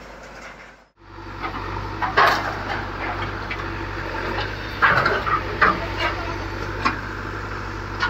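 Backhoe loader's diesel engine running steadily, starting about a second in, with several loud clattering bangs as its bucket tears down a roadside shop's timber, sheeting and debris.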